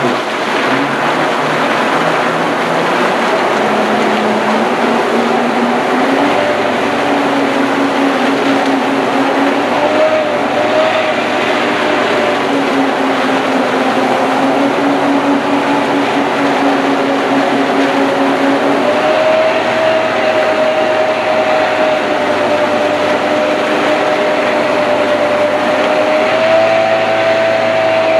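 Yamaha FX jet ski engine revving up over the first few seconds, then held at high revs while the craft is tied in place, with a few small rises later on. Its jet pump throws a loud rushing stream of water across the pool. This is a static test run after a service.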